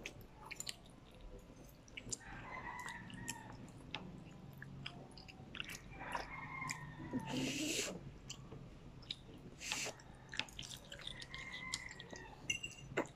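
A child eating black bean noodles: wet chewing and mouth sounds with many small clicks, and two short slurps in the second half.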